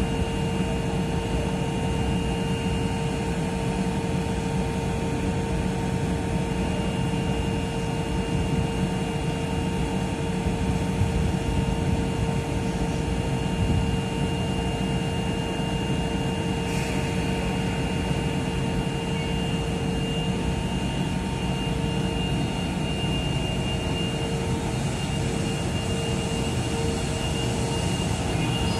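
JR East 651 series electric train standing at the platform, its on-board equipment giving a steady hum with a few steady high whining tones on top.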